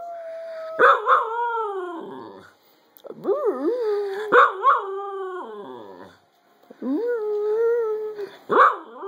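Cocker spaniel howling: three long howls, each two to three seconds, starting with a wavering swoop in pitch and then held steady before trailing off.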